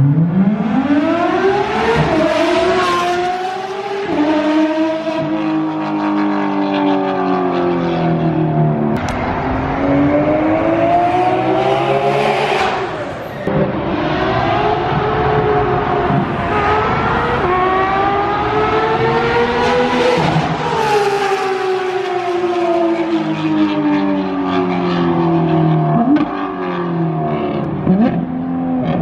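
Porsche 991.2 GT3 RS's naturally aspirated flat-six through a straight-piped exhaust, revving up hard in several pulls with quick upshifts. Between pulls and over the last several seconds the revs fall away slowly as it eases off.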